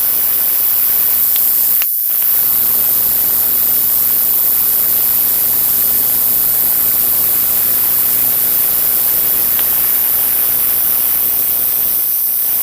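LCD TV giving off the abnormal electrical noise of a faulty power supply board: a steady buzzing hiss with a high-pitched whine and a low mains hum underneath. It drops out briefly about two seconds in.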